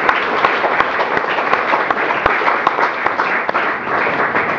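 Audience applauding: many hands clapping at once, at an even level.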